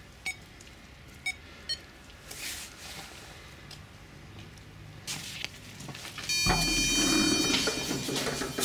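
Door intercom keypad beeping three short times as a code is entered. About six and a half seconds in, a louder steady electronic buzz tone sounds for about a second, the intercom's door-release signal, followed by rattling and handling noise from the metal entrance door.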